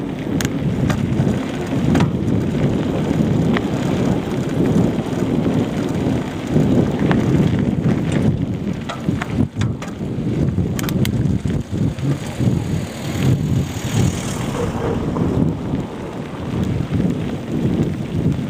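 Bicycle rolling fast off road: wind buffeting the microphone, with scattered knocks and rattles from the rough ground.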